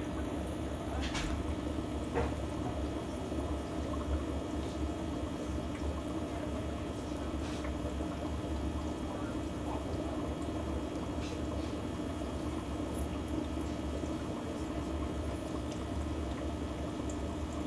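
Aquarium filter running: steady bubbling, trickling water over a low hum, with a few faint ticks in the first few seconds.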